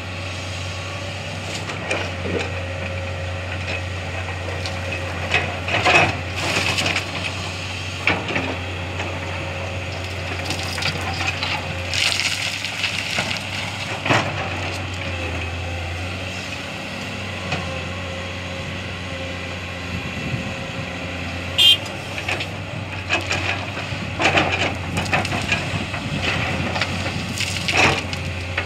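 Excavator bucket dumping loads of sand and stones into a tipper truck's steel body, heard as bursts of crunching, clattering impacts a few times, over the steady low hum of heavy diesel engines running.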